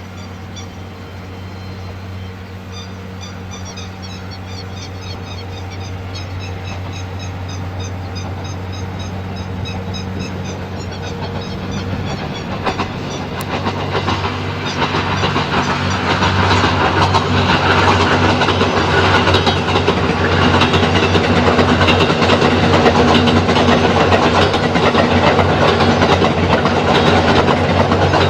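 The Twilight Express Mizukaze, a JR West 87 series diesel-electric hybrid train, approaches. It grows steadily louder for about sixteen seconds, then passes close with a steady engine drone and wheels clattering over the rail joints. Rapid high chirping calls sound in the background during the first half.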